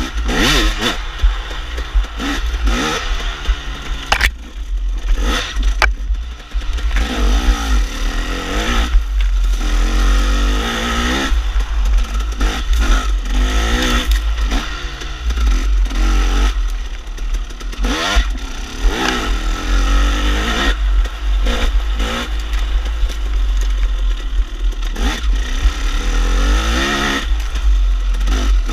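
KTM enduro dirt bike engine revving up and down again and again as the rider works the throttle through tight single-track, over a heavy low rumble. A few sharp knocks from the bike clattering over the trail.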